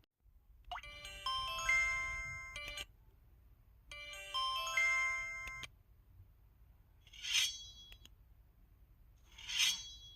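KTF-TR2000 flip phone's folder-open effect sounds through its speaker. A bright electronic chime jingle of quickly stacked notes plays twice, then two short swishing whooshes follow about two seconds apart.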